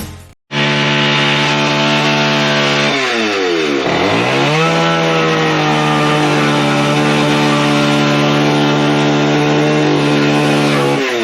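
Gas chainsaw running at high revs. The engine note drops about three seconds in, climbs back, holds steady, and falls off again near the end, as the saw is worked through the camper's plywood floor to tear it out.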